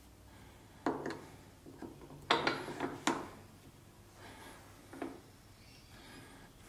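A handful of short knocks and clicks, unevenly spaced, as the steel shank of a Tschorn 3D probe is handled and seated into a tool holder.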